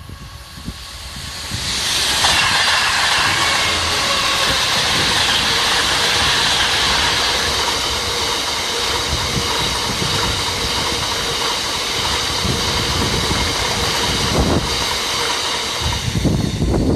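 Train passing close by at speed: a steady loud rush of wheels on rail with a faint high ringing whine. It builds up over the first two seconds, and a low rumble grows stronger near the end.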